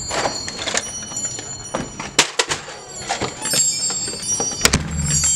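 Brass doorknob turned and rattled on a front door, giving an irregular run of sharp clicks and knocks, with faint high ringing tones. Someone is trying to get the door open.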